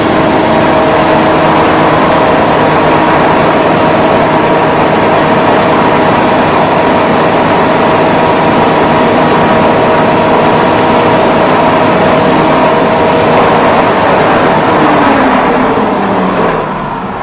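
AWF21B mini hammer mill running at full speed: a loud, steady whirring noise with a few steady hum tones. Near the end its pitch falls and the sound fades as the rotor winds down.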